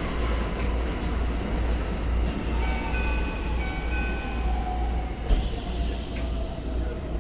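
Keikyu electric train running, with a steady deep rumble and thin whining tones that slowly fall in pitch. A single sharp knock comes about five seconds in. The train is one that the uploader singles out for its unusual noise.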